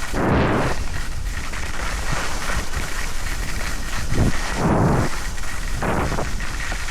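Wind rushing over the microphone and skis hissing on snow during a downhill ski run, the noise swelling several times, most strongly near the start and about four to five seconds in.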